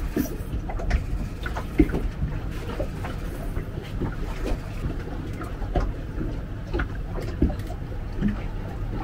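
Wind rumbling on the microphone and water lapping against a fibreglass boat hull, with scattered small knocks and clicks of handling on board and one sharper knock about two seconds in.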